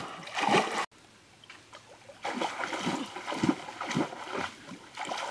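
Irregular water splashing as a swimmer pushes a wooden dugout canoe through a river. The splashing cuts off abruptly just under a second in, then starts again a second or so later.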